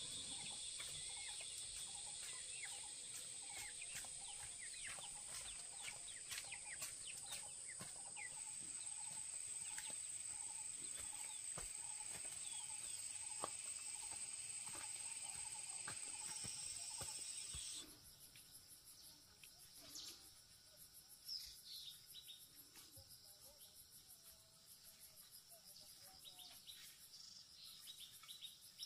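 Outdoor farmyard ambience: a steady high-pitched insect chorus with many bird chirps and repeated poultry clucking. About two-thirds of the way through, the insect chorus cuts off suddenly, leaving quieter, scattered bird chirps.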